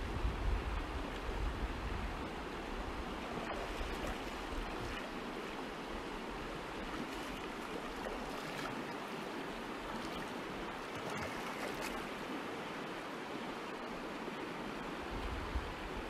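Shallow river rushing steadily over stones, with a low rumble that is stronger in the first couple of seconds.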